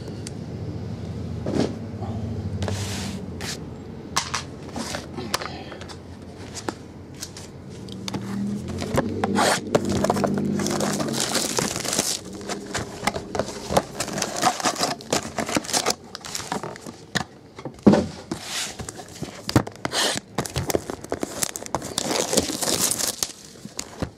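Cardboard trading-card boxes and foil packs being handled on a tabletop: scraping, knocking and rustling packaging, with one sharp knock about 18 seconds in.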